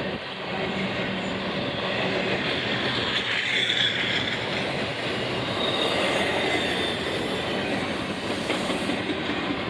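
Union Pacific intermodal freight cars rolling past, with steady wheel-on-rail noise and a brief high wheel squeal about three and a half seconds in.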